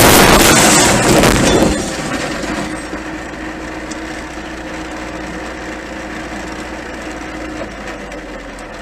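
A sudden loud impact on the car's windshield as it cracks, heard from inside the car, with a harsh cracking, rattling noise lasting about a second and a half. Then the car's engine running steadily while the car stands still.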